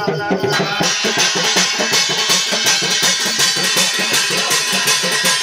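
Drum-led folk music with quick, even beats and a bright ringing layer of percussion above them.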